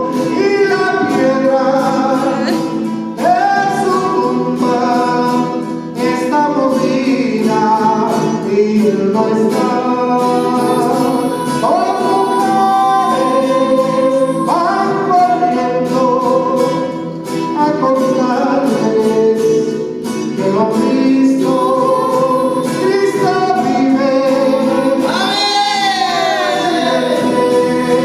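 A Spanish-language gospel song sung with guitar accompaniment. The vocal line carries on through the passage and ends on a long held note with strong vibrato near the end.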